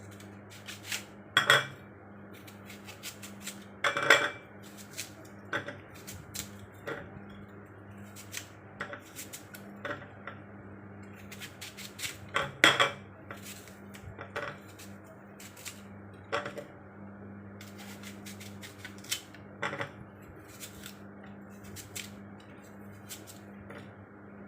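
Kitchen knife slicing an apple: irregular taps and clicks of the blade through the fruit and onto the board, with three louder clatters, over a steady low hum.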